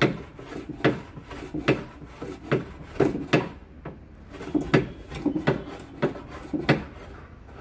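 Hand plane shaving a wooden board in repeated strokes, about one a second, each a short sharp scrape of the blade on the wood. The strokes stop about seven seconds in.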